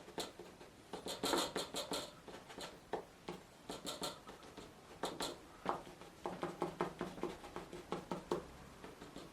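A scraping tool scratching repeatedly across wet watercolour paper in short strokes, cutting rock shapes into the still-wet paint.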